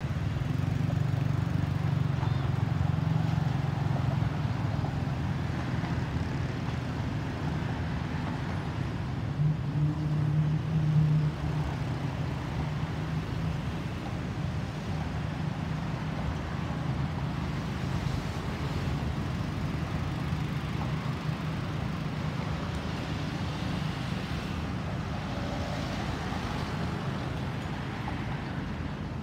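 Steady low rumble of road traffic mixed with the distant jet noise of a Boeing 737-800 airliner passing high overhead. The rumble swells briefly about ten seconds in.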